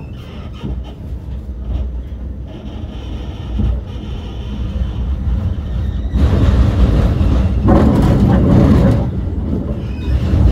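Vienna tram running along its rails with a steady low rumble. From about six seconds in a much louder rushing rail noise joins it.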